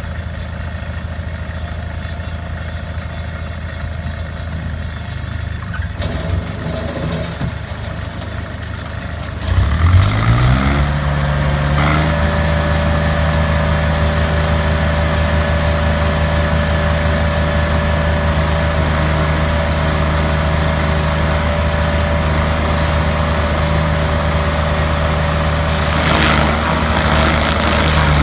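Stump grinder's gasoline engine idling, then throttled up about ten seconds in to a steady high-speed run, not yet cutting into the stump. The pitch drops again near the end.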